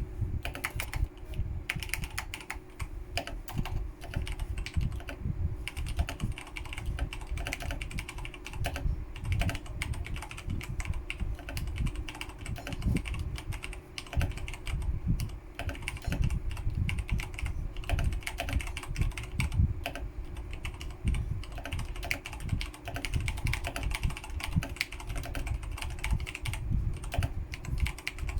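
Continuous typing on a Razer BlackWidow Ultimate Stealth mechanical keyboard with Razer Orange tactile switches: a steady patter of key clicks and keys bottoming out.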